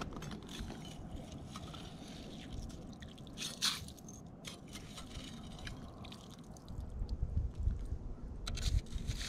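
Rubber boots stepping and scuffing on bare lake ice with a crust of snow: scattered crunches and scrapes. Low rumbling on the microphone joins in for the last couple of seconds.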